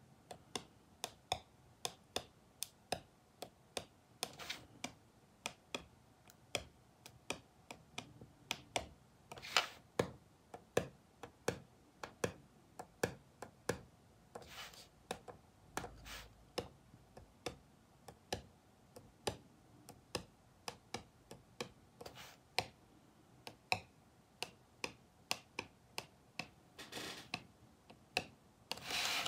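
Tip of a Sakura Gelly Roll Soufflé gel pen tapping down onto thin black cardboard as white dots are dabbed on: a run of small sharp ticks about two a second, with an occasional longer scuff of the hand on the card.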